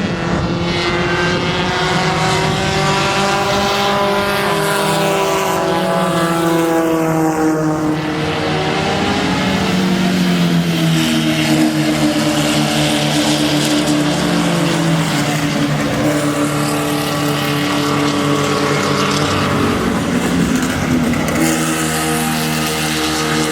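Race car engines running hard on a road course, several at once, their pitch rising and falling with acceleration and gear changes as they pass.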